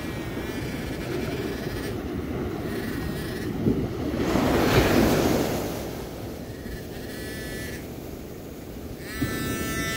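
A wave washing up the shore, loudest about four to five seconds in, over steady wind noise on the microphone. A metal detector sounds short target tones four times.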